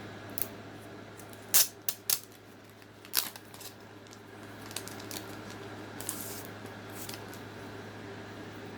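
Postcard set and its packaging being handled: a few sharp clicks and taps in the first few seconds, then a short papery slide about six seconds in, over a steady low hum.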